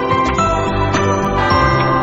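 Background music: a bright tune with bell-like, glockenspiel-style notes over a steady bass line.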